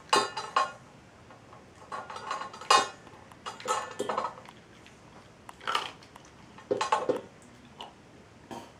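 A small terrier eating from a stainless steel bowl: food and teeth clinking against the metal in short clusters every second or so.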